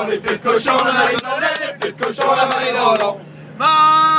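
A man's voice chanting in a sing-song way without clear words, then a lull and one long held sung note near the end.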